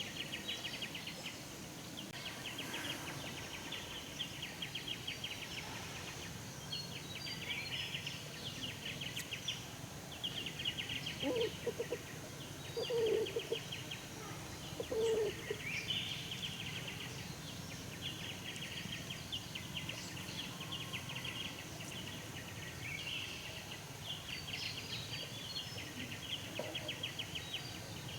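Rural outdoor ambience: high, rapid trilling calls repeat in phrases of a second or two throughout, with three short, louder, lower-pitched calls about halfway through.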